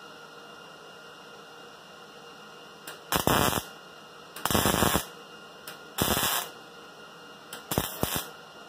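MIG welder arc crackling in four short bursts of about half a second each, tack-stitching a sheet-metal car quarter panel along its seam. A steady low hum runs underneath between the welds.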